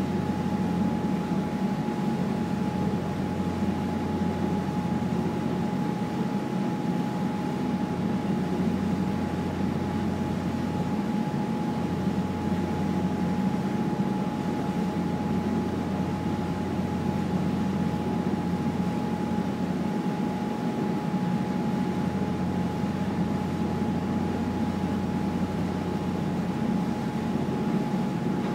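Passenger ferry's engines droning steadily under way: a low, even rumble with a thin constant whine above it.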